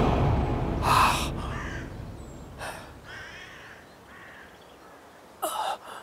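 A man gasping and breathing hard in short ragged breaths, with a louder strained gasp near the end.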